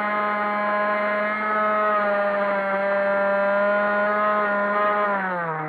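Multiplex EasyStar 3 RC plane's electric motor and propeller whining steadily in flight, then dropping in pitch about five seconds in as the motor slows.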